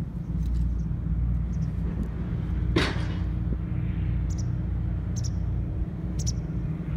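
Footsteps on a concrete breakwater: light scuffs roughly once a second and one sharper knock about three seconds in, over a steady low rumble.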